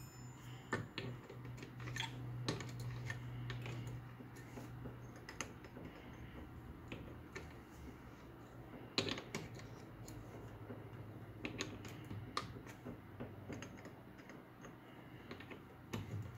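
Scattered light metallic clicks and knocks as a chuck key is worked in a three-jaw chuck, clamping a steel cartridge case. A low steady hum fades out about five seconds in.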